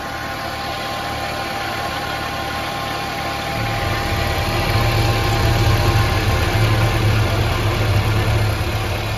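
Maruti Swift's MPFI petrol engine idling steadily after one damaged connecting-rod bearing has been replaced. Its low hum grows louder about three and a half seconds in, then holds.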